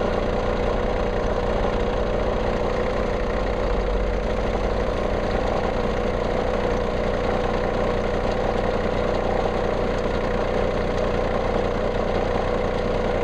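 Common-rail diesel engine idling steadily during an injector leak-off test, with fuel from the injector return ports running into measuring bottles.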